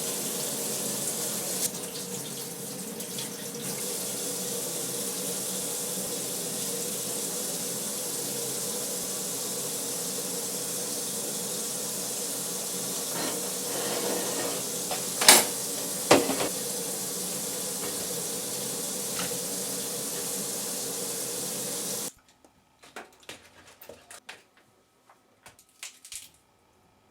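Kitchen tap running steadily into a sink, with a couple of sharp knocks about halfway through. The water shuts off abruptly near the end, leaving only a few faint handling sounds.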